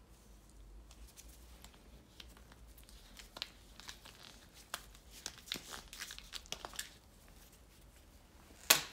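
Gloved hands handling plastic bottles and metal cans on a wooden table: a scatter of small clicks, knocks and glove crinkles, then one sharp, much louder click near the end as the plastic cap is snapped off a metal aerosol-style can.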